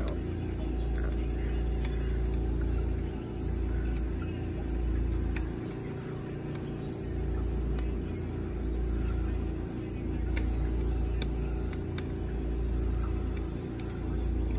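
Plastic Wacky Track links clicking as the chain is twisted and bent into shapes: scattered sharp clicks a second or two apart, over a steady low rumble.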